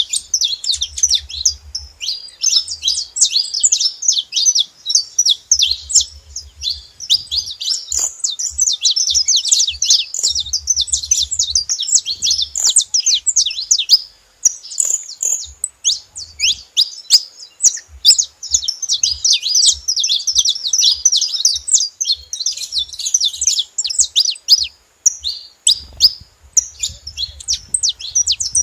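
Saffron finch (canário-da-terra) singing: a fast, continuous stream of high chirps and trills. There is a short pause about halfway through.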